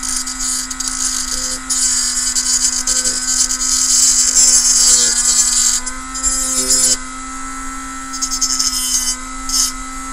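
Cordless rotary tool running steadily with a small cutting disc, grinding into a thin sheet-metal piece in several spells of harsh, hissing cutting. The longest spell runs from about two to six seconds in, with shorter touches near seven and nine seconds, as a pointed corner is rounded off.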